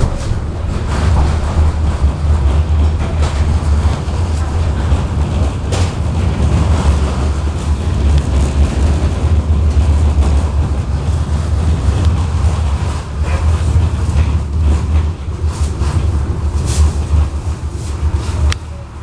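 KTM-19 tram running along the line, heard from inside the car: a steady low rumble of the running gear on the rails, with a few sharp knocks.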